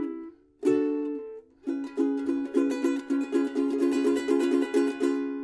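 Instrumental break on a strummed string instrument between verses of a sung folk song. Two chords are struck and left to ring, then a quick, even run of strums follows from a little under two seconds in and rings out near the end.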